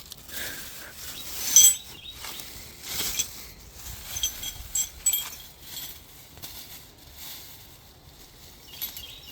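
Rustling with scattered light metallic clinks, as of a bag of steel hitch pins being rummaged through. The loudest clink comes about one and a half seconds in, with a cluster of smaller ones around four to five seconds.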